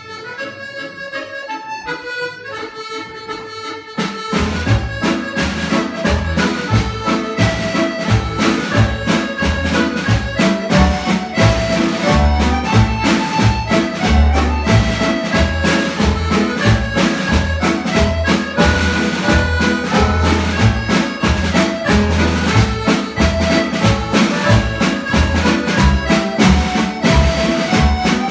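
Two piano accordions playing retreat pipe marches as a duet. A lighter melodic lead-in comes first; about four seconds in, the full sound comes in with a steady bass beat.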